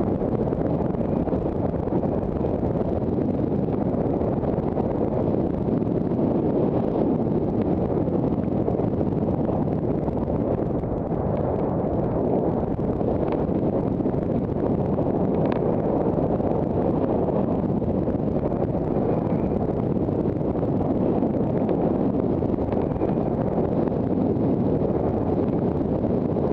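Steady rush of wind buffeting an action camera's microphone during a fast downhill mountain-bike descent on a rocky dirt trail, a constant low rumble with no engine tone.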